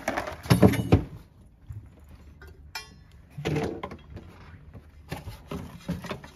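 Handling noise of metal parts and tools: a cluster of knocks and clatter in the first second, a single ringing metallic clink about three seconds in, then scattered lighter knocks and rustles as a motorcycle exhaust header pipe is handled.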